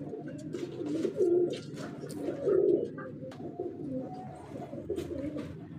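Domestic pigeons cooing over and over in a loft, low rounded coos repeating every second or so, with scattered light clicks.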